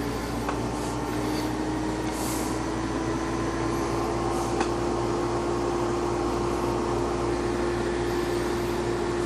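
Fan of a small USB personal evaporative cooler running on high, a steady hum whose pitch rises slightly over the first few seconds as it comes up to speed and then holds, over the steady rush of a room air conditioner.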